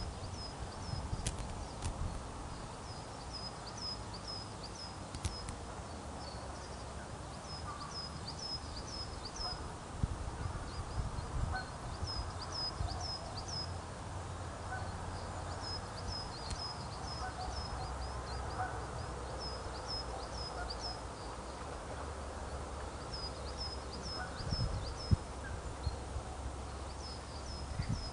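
A bird calling in quick series of short, high chirps, about five to eight notes at a time, repeated many times over a steady low rumble. A single sharp knock stands out near the end.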